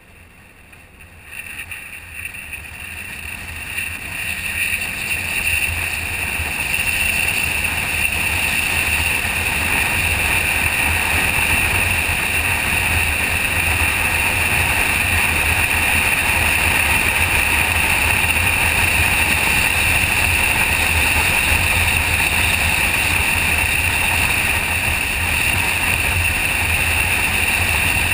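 A motorcycle underway, its engine and the wind rushing over the microphone blending into a steady noise. The noise swells over the first few seconds as the bike picks up speed, then holds steady.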